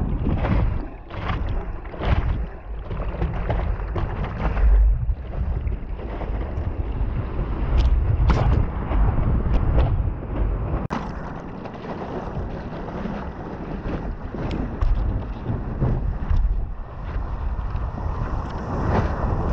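Wind buffeting the microphone of an action camera mounted on a stand-up paddleboard, over water rushing and slapping against the board as it moves through the surf and rides a wave. Many short sharp splashes break through the steady rush.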